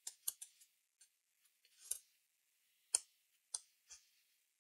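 Faint, irregular clicks and a short scrape of a small tool working solder paste over a BGA reballing stencil on a chip, the sharpest click about three seconds in.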